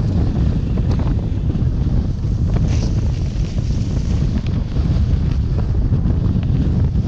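Heavy wind buffeting the microphone of a GoPro Hero 6 Black as the rider speeds downhill on a snowboard, a dense, unbroken low rumble. Faint brief scrapes of the board over the snow come through now and then.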